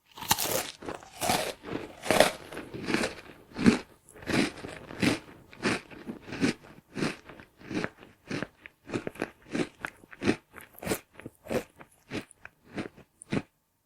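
A person munching crunchy food close to the microphone, with loud, wet crunching chews in a steady run. The chews come about one and a half to two a second at first and get quicker toward the end, then stop.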